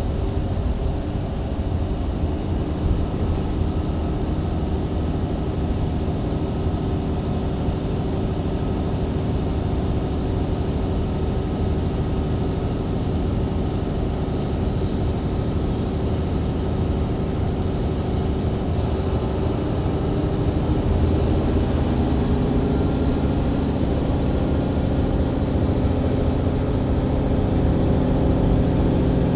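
Mercedes-Benz Citaro C2 LE hybrid bus engine and Voith automatic gearbox running steadily at road speed, heard from inside the bus. About 20 seconds in, the engine note shifts and grows louder as the bus works hard up a hill.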